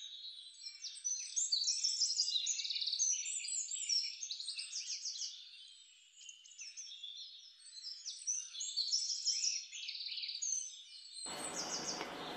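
Many small birds chirping and twittering together in a dense chorus of short high calls and trills. Near the end a steady noise cuts in abruptly under them.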